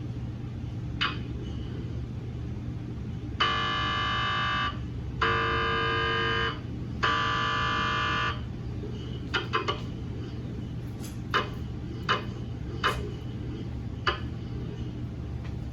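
GE MRI scanner running a daily quality-assurance scan: its gradient coils give three buzzing tones of about a second and a half each, a few seconds in, then a scattered run of sharp knocks, over a steady low hum.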